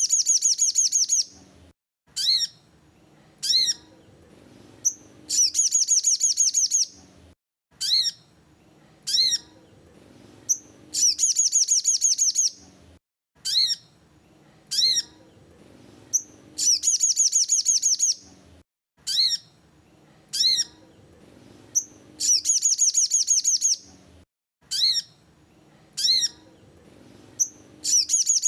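Sogon bird song, a lure recording: a few short, sharp chirps about a second apart, then a rapid high trill of about a second and a half. The same phrase repeats every five and a half seconds or so, as in a loop.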